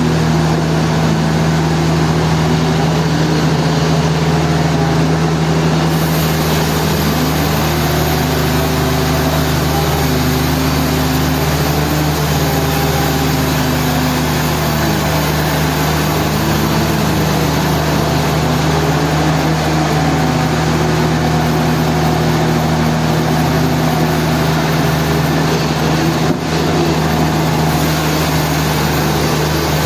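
Sawmill machinery running: a steady, loud low motor hum, with higher tones above it that slowly rise and fall.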